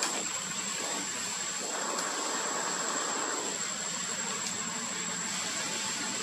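Steady background hiss with a constant thin, high-pitched whine, with no distinct events.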